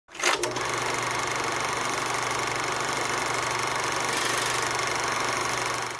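A steady, machine-like drone with a low hum under a dense hiss, starting with a short knock and cutting off suddenly at the end.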